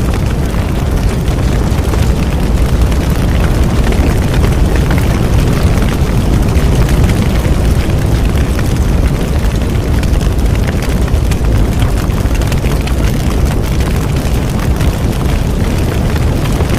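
Bonfire burning steadily: a constant low rumble of flames with dense small crackles and pops throughout.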